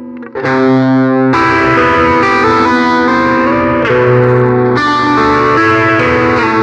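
Electric guitar chords played through a Maestro Orbit Phaser pedal, the phaser sweeping slowly up and down about once every two seconds. The first chord comes in a moment after the start, and new chords follow roughly every second.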